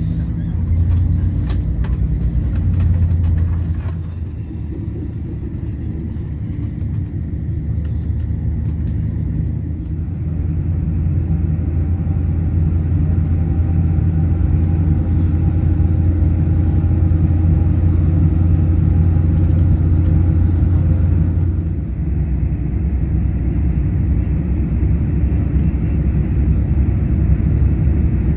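Steady low rumble of a moving vehicle, with a faint steady whine from about ten seconds in to about twenty-two seconds in, when the rumble changes.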